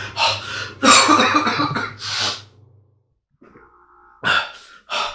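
A man's sharp, audible breaths and gasps: a voiced gasp about a second in, a hissing exhale around two seconds, then short quick breaths near the end. A low hum stops about halfway.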